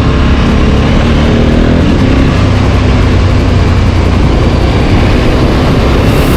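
KTM 1290 Super Adventure S's V-twin engine running under way, mixed with a loud, steady rushing noise.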